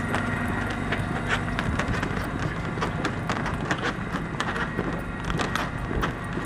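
Footsteps of someone walking briskly with luggage: a quick, irregular run of hard clicks, several a second, over a steady low hum.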